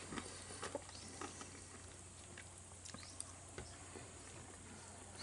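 A cat chewing fried potatoes from a small dish, heard as faint, irregular clicks of eating.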